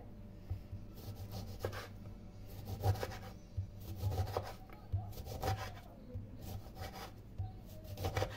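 Hand scraping and rubbing on food during kitchen preparation: about a dozen uneven, rough strokes, one to two a second.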